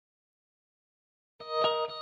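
Dead silence, then about one and a half seconds in a song starts abruptly: electric guitar with effects, struck in a steady rhythm.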